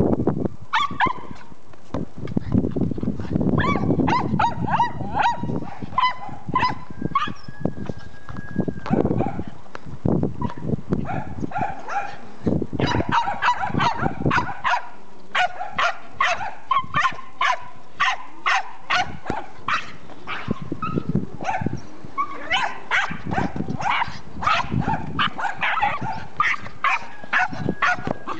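Small dog barking over and over in short, sharp barks, often two or three a second in quick runs, excited barking while it plays with a ball.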